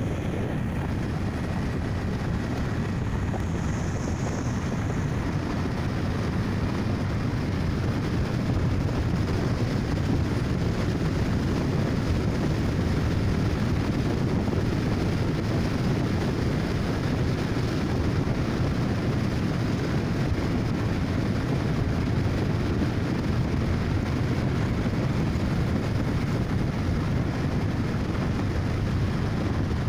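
Steady rush of wind over the microphone mixed with the running noise of a vehicle travelling along a paved road.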